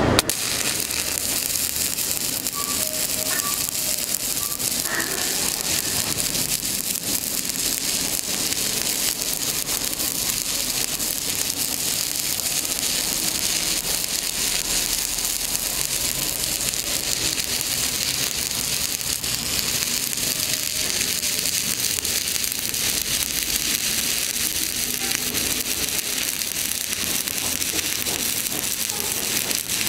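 Stick-welding (shielded metal arc) electrode arc burning steadily on steel, a continuous crackling sizzle.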